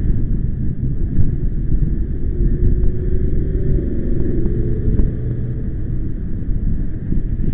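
Wind buffeting the microphone: a loud, gusting low rumble. A faint wavering hum rises and fades through the middle.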